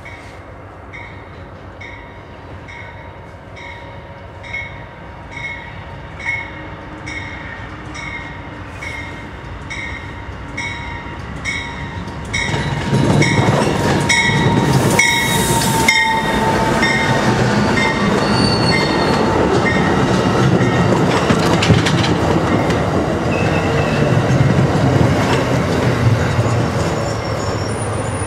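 Railroad crossing bell ringing in a steady rhythm as a passenger train approaches. About twelve seconds in, the train arrives and passes close by, its wheels rumbling loudly on the rails with some thin wheel squeal.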